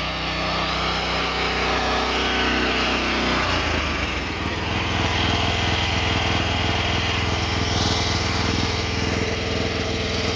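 Small gasoline engine of an AGROTK QH-12 mini excavator running. About three and a half seconds in it speeds up, then holds a steady higher speed.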